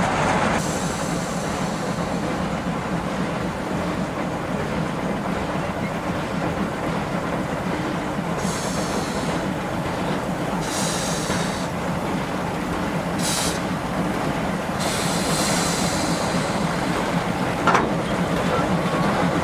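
Narrow-gauge train running along the track: a steady rumble of wheels on rails, broken by several short spells of high-pitched wheel squeal in the second half, with one sharp knock near the end.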